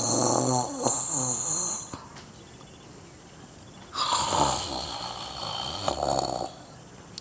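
A person imitating loud snoring: a rasping snore that ends about two seconds in, then, after a short pause, a longer breathy snore.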